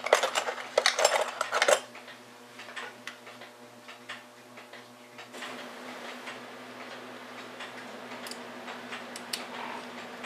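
Small brass and steel clock parts clicking and clinking as a mantel clock movement's springs and pieces are handled and fitted; a busy clatter for the first couple of seconds, then scattered light clicks. A faint steady hum comes in about halfway through.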